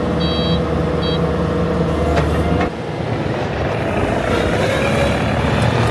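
Skid steer engine running hard under throttle, easing off briefly a little before the middle and then picking up again. Two short high electronic beeps sound near the start.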